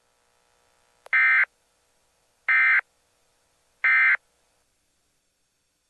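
Three short electronic data bursts of EAS/SAME digital code, about a second and a half apart, marking the end of a weather radio alert message.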